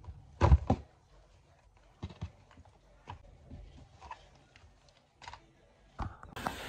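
Items being handled out of a canvas tote bag and set down on a wooden desk: a heavy thump about half a second in, then scattered lighter knocks and clicks with fabric handling. Near the end a steadier background noise comes in.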